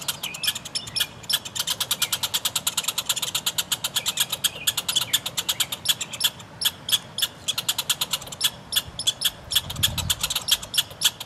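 Red squirrels quarrelling, giving a fast, steady chatter of sharp calls at about six a second in a territorial standoff.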